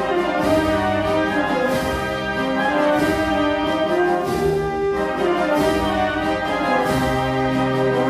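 A Spanish wind band (banda de música) playing a slow Holy Week processional march, with brass carrying held, sustained chords that change about every second.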